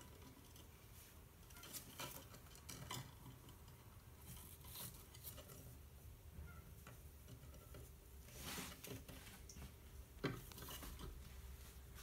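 Near-quiet room with a handful of faint, short clicks and rustles from a rose-ringed parakeet shifting about on a wooden branch perch and a gloved hand moving close to it; the sharpest click comes near the end.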